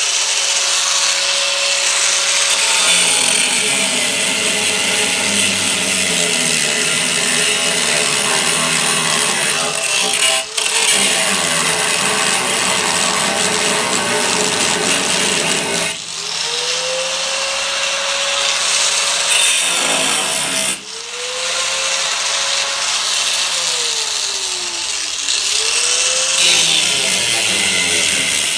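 Handheld power tool cutting into the rusted sheet steel of a car's rear quarter panel, a harsh gritty noise over a motor whine. The whine sags in pitch as the tool bites into the metal and climbs again when it is eased off. The tool stops for a moment about ten, sixteen and twenty-one seconds in, each time spinning back up.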